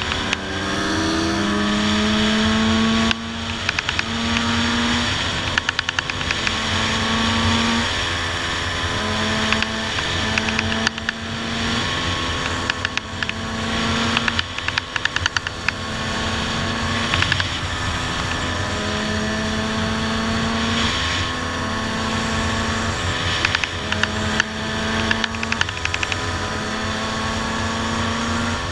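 Honda CR250 single-cylinder two-stroke motocross engine running under way on the road, its revs climbing and dropping back again and again.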